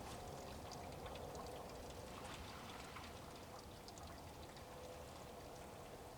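Maple sap being poured out of a tree's sap bucket into a collecting pail: a steady, faint pour of liquid.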